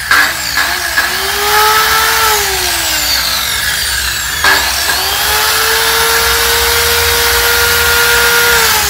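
Hitachi C7SS circular saw running with no load after a rebuild with new bearings and fresh grease: switched on and spinning up, then released and coasting down, switched on again about four and a half seconds in and run at a steady whine, winding down again near the end.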